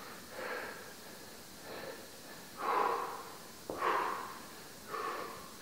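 A man breathing hard under exertion: short, noisy breaths about once a second, with one small click about halfway through.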